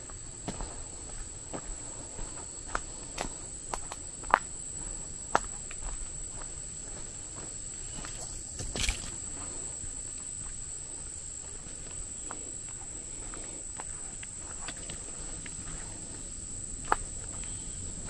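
Footsteps on a dirt forest trail with scattered sharp clicks, the loudest about 4 and 5 seconds in and near the end, and a brief rustle about 9 seconds in. Underneath runs a steady high-pitched drone of insects.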